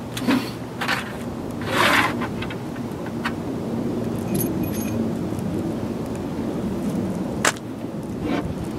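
Small metal hardware (bolts, nuts and washers) and a hand tool clinking and rattling as they are handled on a table. There are scattered clinks, a longer rattle about two seconds in, and a sharp click near the end.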